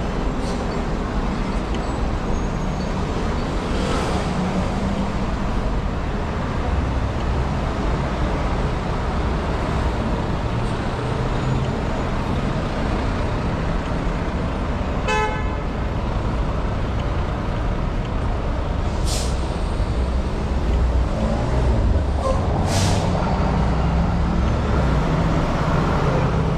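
City street traffic: a steady rumble of passing cars, trucks and buses, with a short car horn toot about halfway through and two brief hisses near the end.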